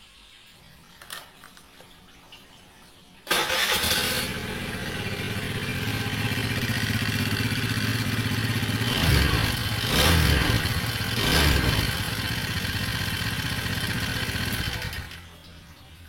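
Honda Vario 110 LED scooter's single-cylinder engine starting suddenly and running harsh and rough. It is revved briefly three times, then cut off about a second before the end. The engine has run dry of oil, and the mechanic suspects the rough noise comes from the piston.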